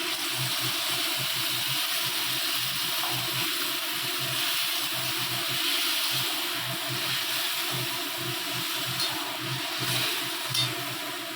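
Chicken in yogurt gravy sizzling steadily in a pan on the stove, just after a little water has been added.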